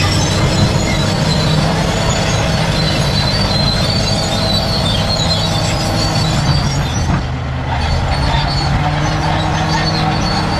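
Crawler bulldozer working, its diesel engine running steadily, with high metallic squealing from the steel tracks. The engine eases off briefly about three-quarters of the way through.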